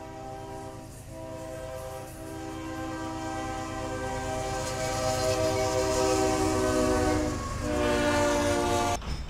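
Diesel locomotive's multi-chime air horn sounding long blasts for the grade crossing, with two short breaks early on and one near the end, growing louder as the train approaches, over the rumble of railcars rolling past. It cuts off abruptly near the end.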